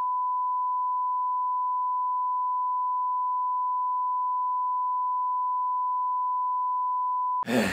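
Broadcast test-card tone: one steady, unbroken beep at a single pitch, held for about seven seconds and cut off abruptly near the end. It marks an interrupted programme and bleeps out a censored insult.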